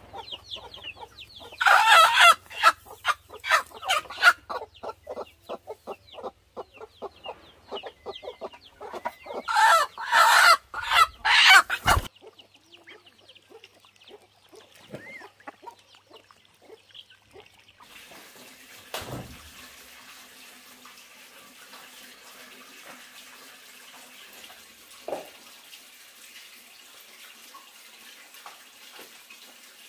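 Chickens clucking and squawking in loud bursts, loudest about two seconds in and again around ten to twelve seconds in, then cutting off suddenly. Some seconds later a steady hiss of running water from a tap begins.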